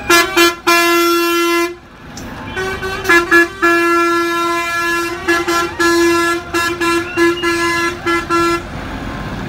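Fire engines in a convoy honking their horns in a string of long and short blasts, sometimes two horns at once at different pitches, with a short pause about two seconds in.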